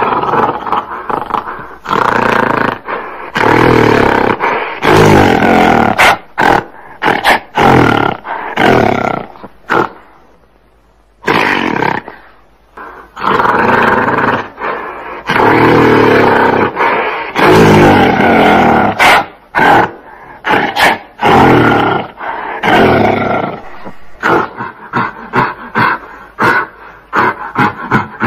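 Gorilla calling in a series of loud calls a second or two long, with short gaps between them. There is a brief lull about ten seconds in, and the calls come shorter and quicker near the end.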